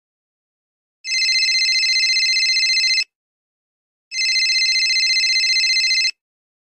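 Telephone ringing sound effect: two rings of about two seconds each, a second apart, each a fast warbling electronic ring.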